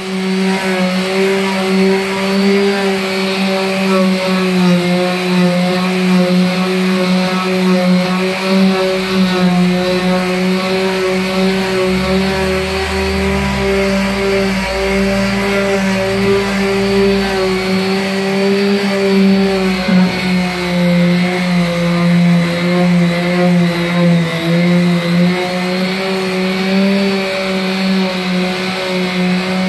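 Corded electric orbital sander running steadily as it sands a patch of body filler, a constant motor hum with overtones. Midway a low rumble joins in for several seconds and the pitch sags slightly.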